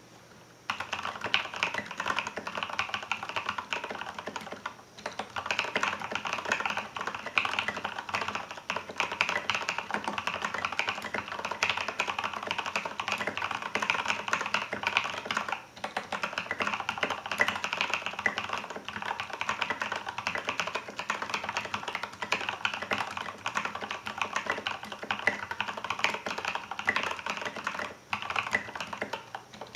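Continuous typing on a Filco Majestouch 2 mechanical keyboard with Krytox-lubed Cherry MX Ergo Clear (62 g) switches and SA-profile doubleshot ABS keycaps. It is a dense run of keystrokes that starts about half a second in, with a few brief pauses.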